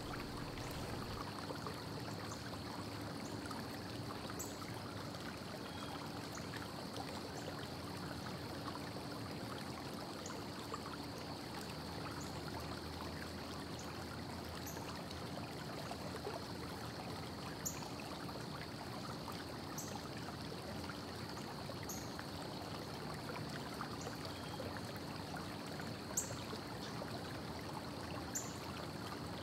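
Faint steady hiss of room tone, with a low hum, a thin high tone and a few soft ticks scattered through it. No drill or bolt-driving sound stands out.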